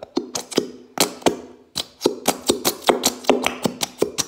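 Plastic squeeze bottle of white glue being squeezed hard, giving a fast run of sharp clicks and pops, about four or five a second, as the bottle flexes and glue and air spurt from the nozzle.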